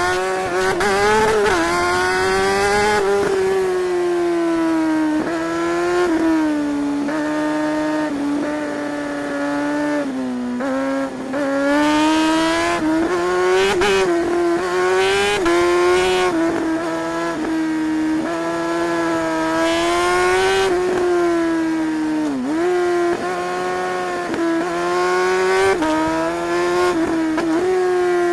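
Suzuki GSR 600 K8's inline four-cylinder engine pulling hard through the gears on the road, its pitch climbing and then dropping at each gear change, over and over.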